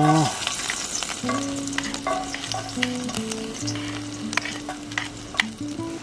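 Garlic sizzling in hot olive oil in a pan, with frequent sharp pops of spattering oil, as the garlic oil is being made.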